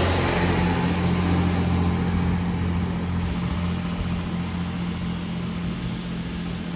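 Class 158 diesel multiple unit pulling away from the platform, its underfloor diesel engines running with a steady low hum that slowly fades as the train moves off.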